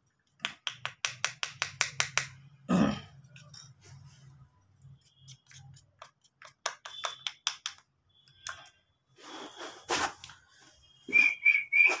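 Baby lovebird chicks calling: a fast run of short, sharp chirps, then scattered clicks and a thump, and three loud, short, high peeps near the end.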